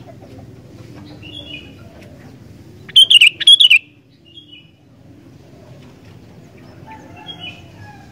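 Sooty-headed bulbul singing: a loud burst of quick, bright chirping notes about three seconds in, with fainter short calls before and after.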